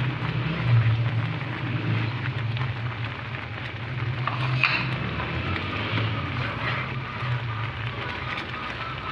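Thickened kheer (milk and ground rice) bubbling and spluttering in a pan on a gas stove as a spatula stirs it, a steady crackle of small pops over a low steady hum. The pudding has thickened and is nearly done.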